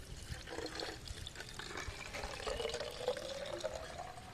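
Liquid pouring in a thin stream from a plastic tub into a plastic spray bottle, the pitch rising as the bottle fills.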